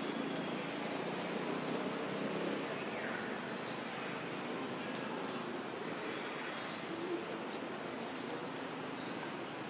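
Steady outdoor hiss with a bird giving short high chirps every two to three seconds and one falling call about three seconds in. A low hum sits underneath for the first two seconds or so.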